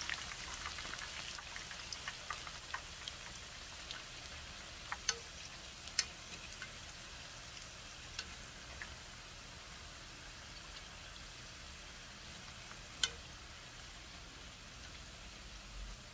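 Battered crown daisy deep-frying in a pan of oil: a steady sizzle with scattered crackles that slowly quietens, broken by a few sharp clicks.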